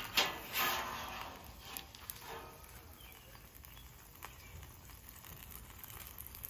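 A metal spatula scrapes and taps on the steel griddle top in the first second, then only faint scattered ticks over a low hiss.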